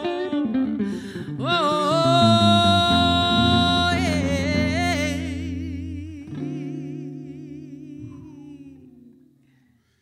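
A woman sings the song's last long note with vibrato over guitar, the voice stopping about five seconds in. The final guitar chord then rings on and fades away.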